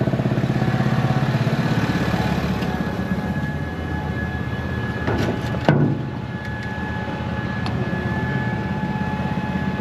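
Tractor diesel engine idling steadily, with a single sharp knock about six seconds in.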